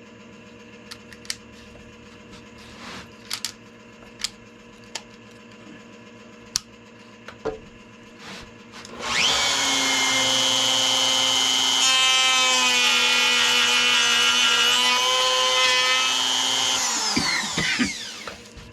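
Palm router with a channel-routing bit starting up about halfway through, running at speed as it cuts a shallow wire channel into the wooden guitar body, its whine wavering under load, then switched off and winding down near the end. Before it starts, a few light, sharp clicks.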